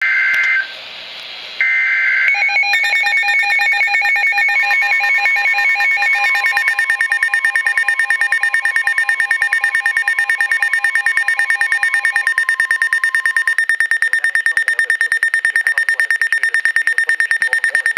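Emergency Alert System weather-radio alert. Two short warbling data bursts open it, and then weather radios (Midland WR-300 and Eton Zoneguard) sound their alarm beeps. Partway through, a long steady warning tone runs under the beeps. One set of beeps stops about two-thirds of the way in, while a fast, even beeping carries on.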